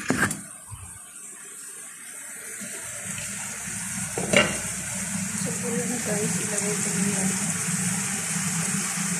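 Shrimp sizzling in a frying pan, a steady hiss that grows louder a few seconds in and then holds. A sharp knock comes at the start and another about four seconds in.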